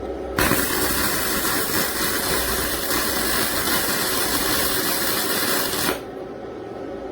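Electric welding arc burning for about five and a half seconds, a dense hissing noise that starts and cuts off abruptly.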